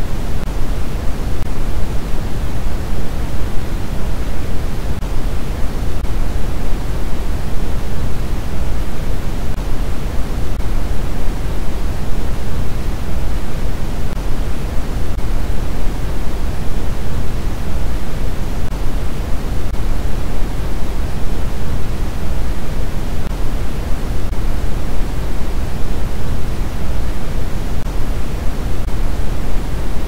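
Continuous synthetic noise from a relaxation noise track: a steady, unchanging even rush, heavier in the low end than the high.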